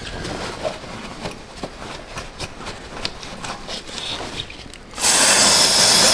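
Irregular rubbing and scraping with small clicks. About five seconds in, an aerosol spray can starts hissing loudly and steadily.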